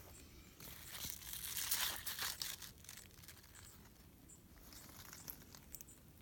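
Rustling and crinkling of large squash leaves brushing close against the microphone, loudest around two seconds in, then fading to faint scattered crackles.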